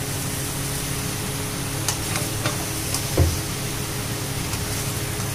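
Metal spatula stirring raw chicken pieces and masala in a steel kadai, with several clinks and one louder knock of the spatula against the pan, over the steady hiss of frying on a gas flame.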